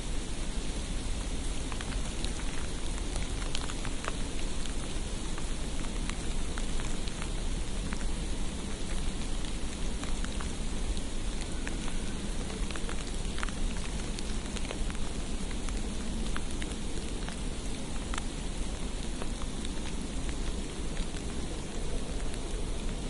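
Precipitation falling on a street: a steady hiss with scattered faint ticks of flakes or drops landing, over a low steady rumble.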